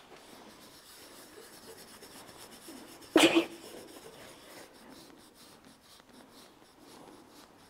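Rubber curry brush scrubbing over a pony's clipped coat: a faint, rapid scratchy rubbing. About three seconds in there is one loud, short puff that stands out over the brushing.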